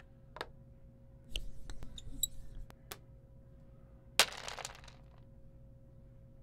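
Scattered small clicks and clinks over a steady room hum, with one sharp knock about four seconds in that trails off in a short rustle.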